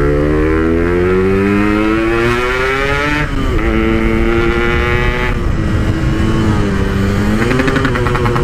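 Yamaha RX-King's 135cc two-stroke single, through a Packing Power PK1 aftermarket exhaust, pulling hard under way: its pitch climbs steadily for about three seconds, drops at an upshift, holds, and climbs again near the end.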